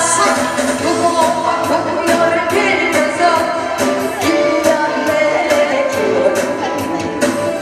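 A woman singing a Korean song live into a microphone over amplified accompaniment with a steady drum beat.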